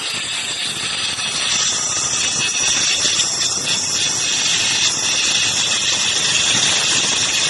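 Handheld marble cutter with a Super Steel cutting blade, running and cutting through a stone slab, wet-cut with a water feed. A loud, steady, high grinding hiss that grows a little louder about a second and a half in.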